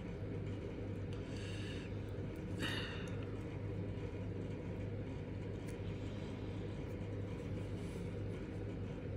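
Steady low background hum, with a few faint brief scratchy sounds about two seconds in.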